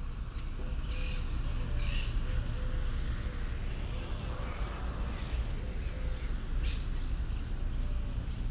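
Outdoor ambience: birds chirping over a steady low rumble, with a short repeated chirp about twice a second and a few brief higher calls.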